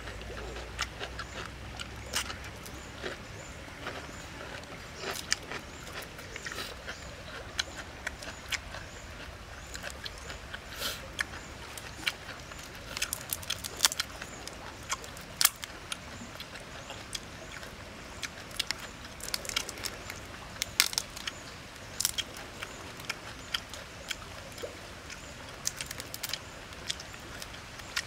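Grilled prawn shells cracking and snapping as they are pulled apart and peeled by hand: many irregular sharp clicks, busiest in the middle, over a steady background hiss.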